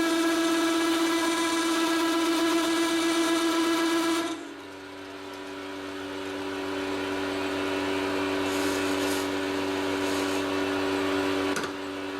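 A metal lathe running with a steady machine whine. About four seconds in, the whine drops in level and shifts slightly in pitch, then slowly builds back up.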